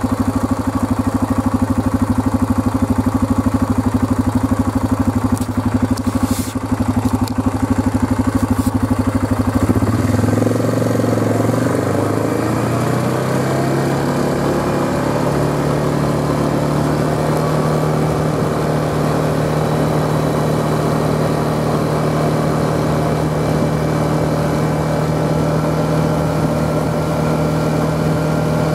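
Small handlebar-steered vehicle's engine idling with a steady rapid pulse, then revving up about ten seconds in, its pitch rising over a few seconds before it settles into steady running as the vehicle rides along the road.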